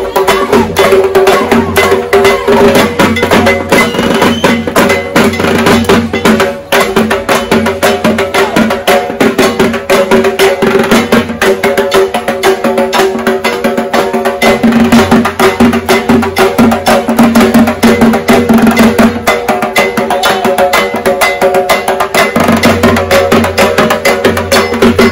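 Several dhak drums beaten with sticks in a loud, fast, dense rhythm, with a steady ringing tone underneath.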